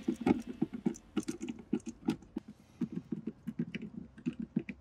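Quick, uneven light clicks and taps of a screwdriver and hands working on plastic wiring connectors and trim under a car's dashboard, with a brief pause about halfway through.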